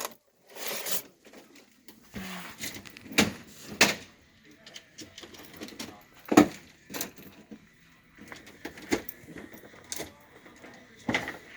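Scattered knocks, clicks and light clatter of hard objects being handled, the loudest knock about six seconds in, with faint voices in the background.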